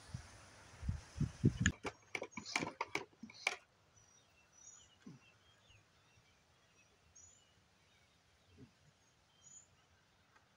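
Small birds chirping outdoors: short, high chirps every couple of seconds. Before them, in the first few seconds, a steady hiss cuts off and a few sharp knocks and clatters are heard.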